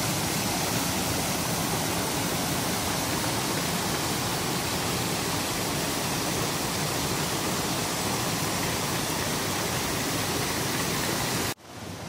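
Steady rush of a small waterfall and the shallow, rocky stream below it. Near the end the sound drops abruptly to a quieter rush.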